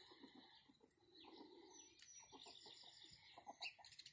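Faint low clucking from a rooster: a run of short, quick notes in the second half.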